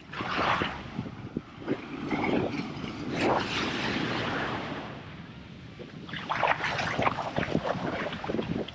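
Wind buffeting the microphone in uneven gusts over the wash of surf on a sandy beach.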